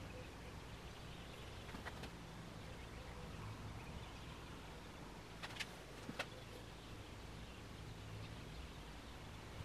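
Faint background ambience: a low steady hum with a few soft, brief ticks, one about two seconds in and two more near the middle.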